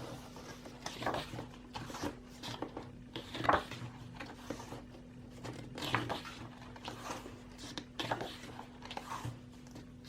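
Paper rustling and light taps as a K-pop album and its photobook pages are handled and turned, in short irregular bursts over a steady low hum.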